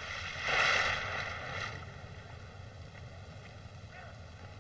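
A large splash of a man falling into the sea, about half a second in, fading over about a second.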